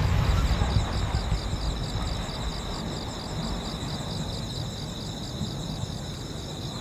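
The low rolling echo of a large aerial firework shell's burst, fading away over the first two seconds, over steady chirping of insects that pulses evenly and continues on its own.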